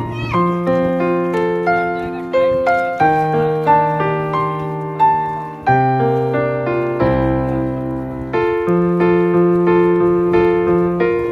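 Background piano music: a slow melody over sustained chords, the notes struck and left to ring.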